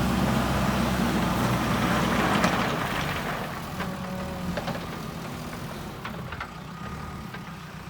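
JCB 3DX backhoe loader's diesel engine running under work, with a rush of rattling noise that swells and peaks about two and a half seconds in, then a few sharp knocks as the level eases off.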